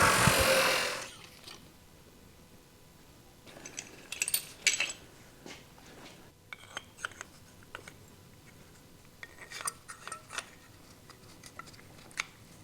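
A loud steady whirring noise stops about a second in. It is followed by scattered light metallic clicks and taps as small metal brake parts and hand tools are handled.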